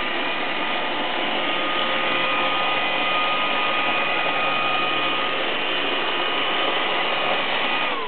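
iRobot Roomba 535 robot vacuum running on carpet: its vacuum and brush motors give a steady whirring hum with a high whine over it, winding down at the very end.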